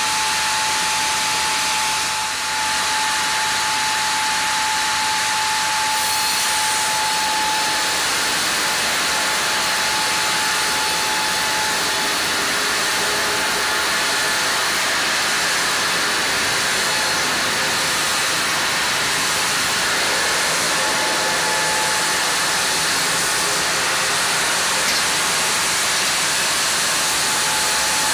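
Large sawmill band saw running and ripping a Japanese kalapanax (sen) log on a moving carriage: a loud, steady hissing saw noise. A thin steady whine runs under it, fades out for a stretch in the middle and comes back.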